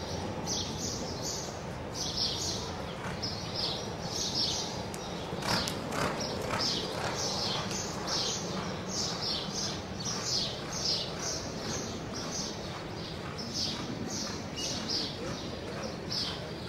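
Horse loping on arena dirt: a steady rhythm of hoofbeats, about one and a half to two strides a second, over a constant background hiss, with a few sharper knocks about five to six seconds in.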